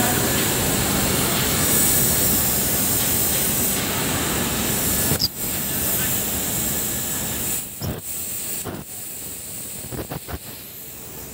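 Gas cutting torch hissing steadily as its flame cuts through a steel plate. The hiss breaks off briefly a few times after the middle and runs quieter near the end.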